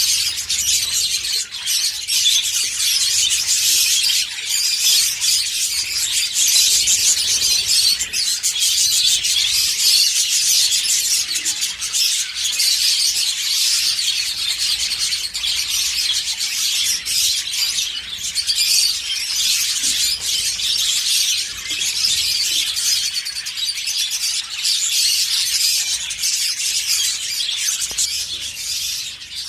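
Budgerigars chattering and warbling without a break: a dense, high, scratchy twitter of clicks and squeaks.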